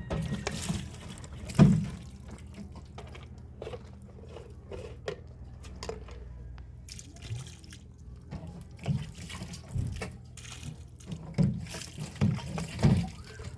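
Water dripping and splashing amid scattered clicks and knocks, with one loud knock a little under two seconds in, over a steady low hum.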